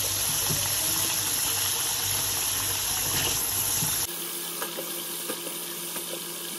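Curry gravy sizzling and bubbling in a steel karahi, a steady hiss. About four seconds in the sound abruptly turns thinner and quieter, with a few light taps as potato cubes go into the gravy.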